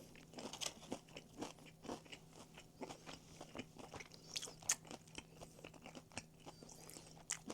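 Crunching and chewing of crispy Korean fried chicken, in irregular crackling bites close to the microphone, over a faint steady hum.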